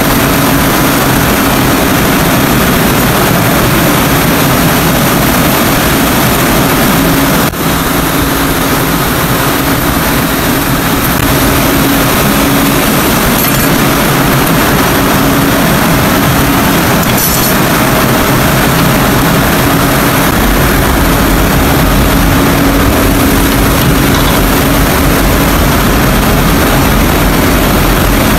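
Cotton factory machinery running loudly and steadily: a continuous mechanical din with a steady low hum underneath.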